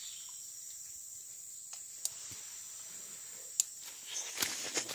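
Insects in the forest keeping up a steady, high-pitched drone. About four seconds in, soft irregular mouth sounds of someone biting and chewing a small fresh fruit come in over it.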